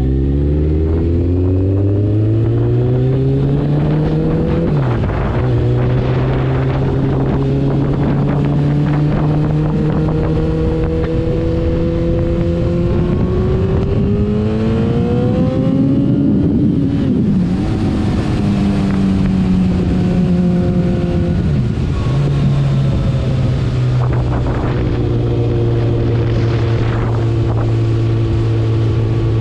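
Kawasaki ZX-14R inline-four engine running through a Two Brothers Black Series exhaust while being ridden. Its pitch climbs under acceleration, drops sharply at gear changes about five seconds in and again around 17 and 22 seconds, and holds steady while cruising in between.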